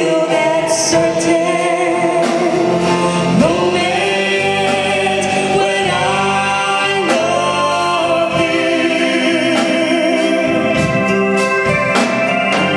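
Live band playing a duet song, with sung vocals held over instrumental backing and regular drum hits.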